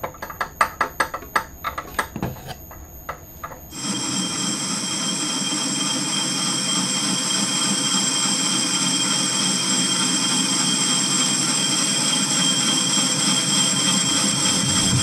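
A run of sharp metal clicks and knocks as a weightlifting weight plate is fitted onto an arbor in a metal lathe. From about four seconds in, the lathe runs steadily, turning the plate into a flywheel, with a steady scraping cutting noise and a few high whining tones.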